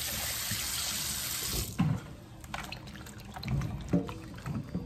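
Kitchen faucet running into a stainless steel sink over fish in a plastic colander, shut off abruptly about a second and a half in. Then scattered soft knocks and wet handling noises as gloved hands rub the fish in the colander.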